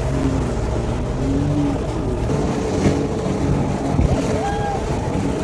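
Boat engine running steadily out on the sea, with faint voices over it.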